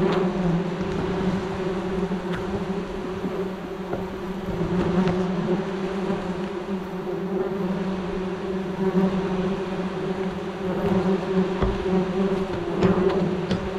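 A swarm of wasps buzzing steadily around their opened nest, with a few short knocks as combs are worked loose.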